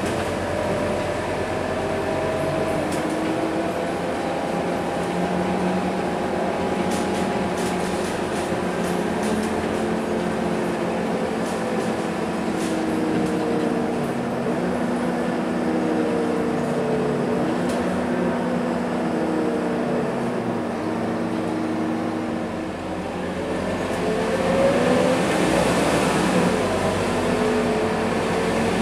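Scania K230UB city bus's diesel engine and drivetrain heard from inside the passenger cabin while driving. Several whining tones rise and fall as it speeds up, eases off and pulls away again.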